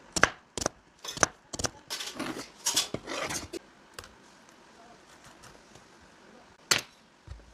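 Kitchen preparation noises: a quick series of sharp clicks and clatters in the first few seconds, then one more sharp click near the end.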